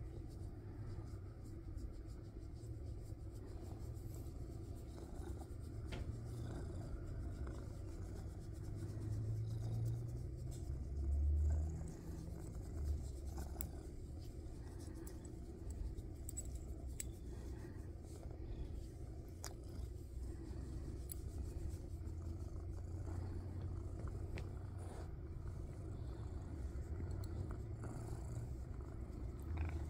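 Domestic cat purring steadily as it is scratched under the chin and on the head, a low rumble that swells louder about ten seconds in. A few faint clicks come through over it.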